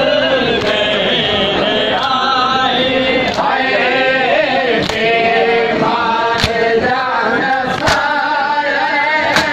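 Men chanting a noha, a Shia lament, in chorus, with sharp hand-on-chest slaps of matam coming about every second and a half from halfway through.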